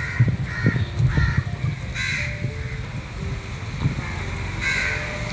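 Crows cawing outdoors, a quick run of harsh caws in the first two seconds and another near the end, over low thuds.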